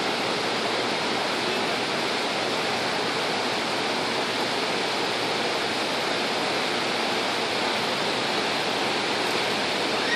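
Steady, even hiss of background noise with no distinct events; no hoofbeats or voices stand out.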